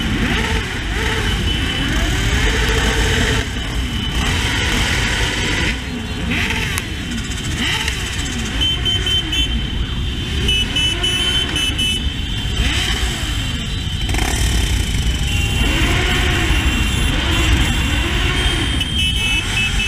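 A pack of motorcycles riding together, the Honda CB600F Hornet's inline-four among them, with engines revving up and down again and again.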